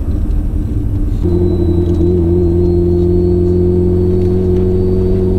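Car engine running at steady revs. Its note steps up about a second in and then holds even.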